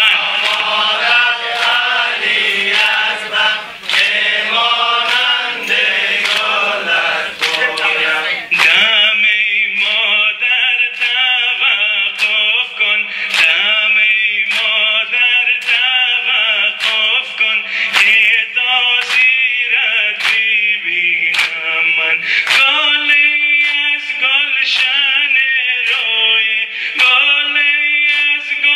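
Male voices chanting a Persian noha, a Muharram lament, over a steady beat of hands striking chests in sina zani, a little more than one strike a second.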